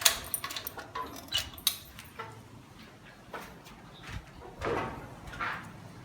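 Sharp clicks and knocks, like a door and keys being handled, in the first two seconds, then two short rushing swells near the end.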